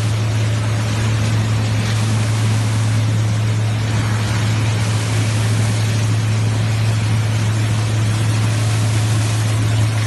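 PE film washing line running: electric motors give a steady low hum under the continuous churning of water and shredded plastic film in the washing tanks.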